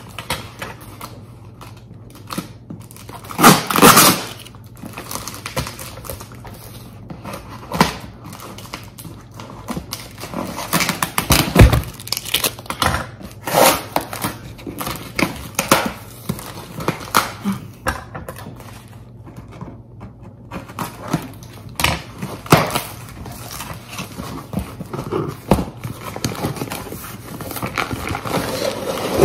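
A taped cardboard shipping box being opened by hand: irregular scraping, tearing and crackling of packing tape and cardboard, with a few louder knocks as the box is handled.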